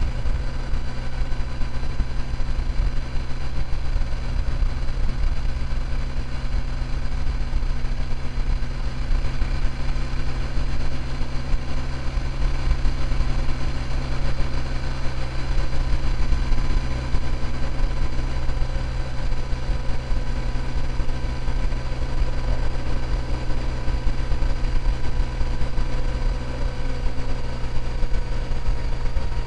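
A vehicle engine running steadily at cruising speed over a heavy low rumble, its pitch dipping slightly near the end.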